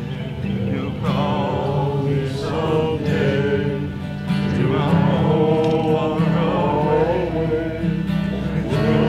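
A hymn being sung, with a wavering melody over steady low accompanying chords, likely a guitar, that change every second or so.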